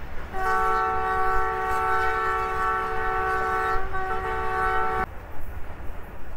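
Locomotive air horn sounding a steady several-note chord for nearly five seconds, with a brief stutter near the end before it cuts off, over the low rumble of the train running on the rails.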